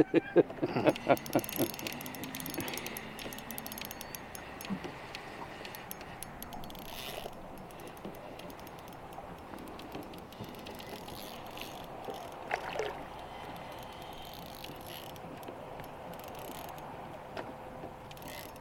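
Baitcasting reel ratcheting and clicking while a hooked white bass is played on the line. There is a run of loud clicks in the first second or two, then lighter ticking over a steady hiss.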